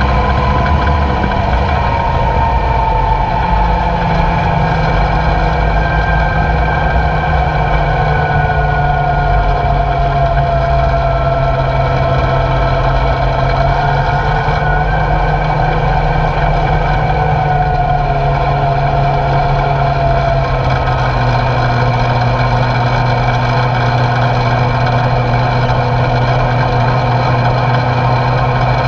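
Diamond T 980 truck's engine running steadily while the truck drives along, with a higher whine that drifts slowly in pitch. The engine note drops a step about four seconds in and again about two-thirds of the way through.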